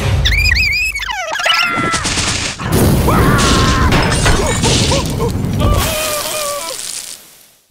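Cartoon sound effects: high, squeaky cartoon-character cries gliding up and down over a low rumble, then a loud crash with noisy clatter about three seconds in, with wavering squeaks over it, fading out near the end.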